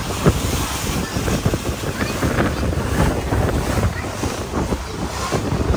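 Wind buffeting the microphone on a whale-watching boat under way, over a steady low rumble of the boat running through heavy swells, with irregular gusty thumps.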